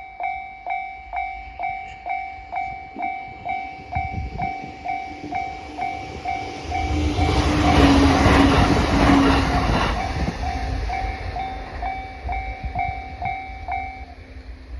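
Japanese level crossing's electronic warning bell, the high-pitched 'TA' type, dinging evenly about two and a half times a second while a local train passes. The train's rumble and wheel clatter build and are loudest from about seven to ten seconds in. The bell stops shortly before the end as the crossing clears.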